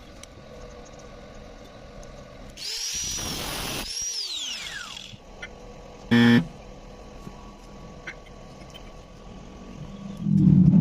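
A power tool runs for about two seconds, its high whine rising and then falling away as it spins down. A short loud buzz sounds about six seconds in, and a loud low hum starts near the end.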